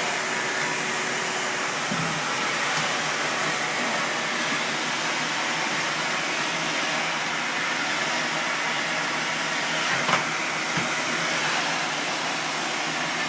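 Vacuum cleaner running steadily, with a few light knocks about two seconds in and again near ten seconds.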